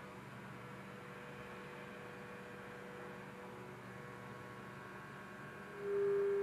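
CNC milling machine's end mill in trochoidal milling of a metal plate: a low, steady machine hum for most of the time, then about six seconds in the cutter's steady single tone comes back loudly as the end mill engages the metal again.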